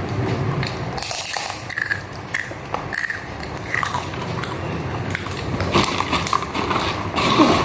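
A person biting and chewing crunchy food close to the microphone, with irregular crisp crackles.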